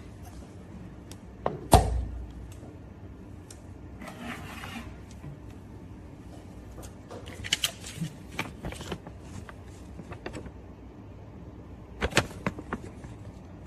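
Handling knocks and clicks at a screen laminating and bubble-removal machine as the pressed screen is taken out, with a heavy thump about two seconds in and a short hiss around four seconds. A steady low machine hum runs underneath.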